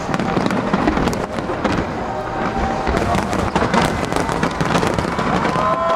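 Fireworks barrage: a dense, continuous run of cracks and bangs from shells bursting in rapid succession, with a few falling whistles near the end.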